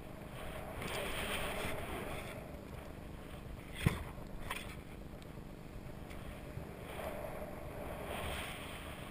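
Snowboard sliding through deep powder snow, a hissing rush that swells and fades with the turns, mixed with wind buffeting the microphone. A sharp knock sounds about four seconds in, with a smaller one just after.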